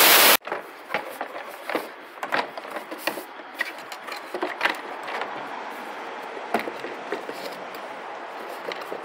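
Compressed-air blowgun blasting a loud hiss that cuts off sharply about a third of a second in, having blown stray gearbox oil drops off the engine bay. After it, a run of scattered light clicks and knocks as the plastic air box parts are handled.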